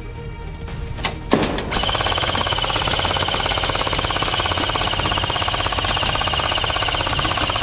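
Airsoft gun firing: a few single shots, then about a second and a half in it goes into a long unbroken full-auto stream. The stream has a very fast even rattle and a steady high whine.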